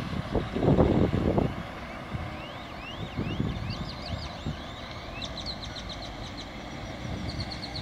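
Wind buffeting the microphone in a burst about a second in, over a steady outdoor hiss. Small birds are singing: a run of rising chirps in the middle, then quick high repeated notes near the end.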